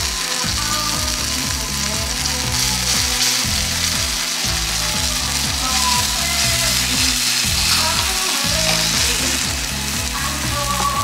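Steak sizzling as it fries on a hot surface, a steady crackling hiss, with background music underneath.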